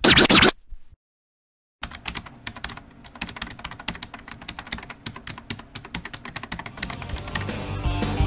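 Fast, irregular computer-keyboard typing clicks, starting after a short silence about two seconds in, with a swell of noise rising under them near the end.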